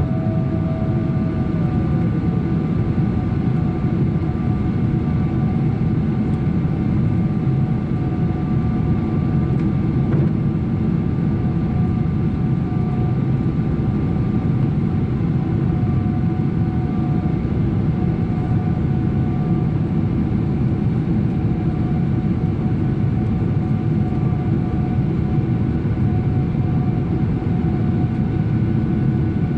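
Boeing 777-300 engines and airflow heard inside the passenger cabin, a steady loud roar with several steady whining tones over it. About two seconds in, one whine slides down in pitch.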